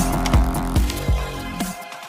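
Electronic intro music with heavy bass beats, fading out toward the end.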